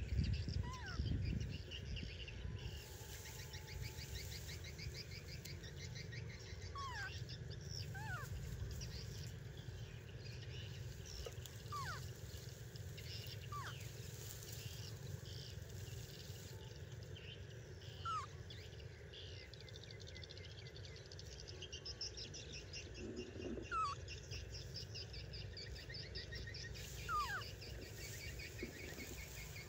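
Quiet outdoor field ambience: short, high, rising chirps every few seconds over a faint fast high trill and a steady low rumble.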